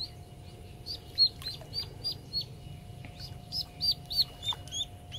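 A duckling peeping: repeated short, high peeps, about three a second, in two runs with a brief pause near the middle.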